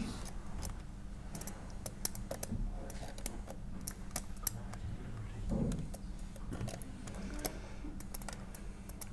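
Irregular crackling clicks of small electrical sparks as a live stranded copper conductor is touched to and drawn away from another conductor. This is a simulated series arc fault on a mains circuit carrying a 4 kW load, heard over a faint steady hum.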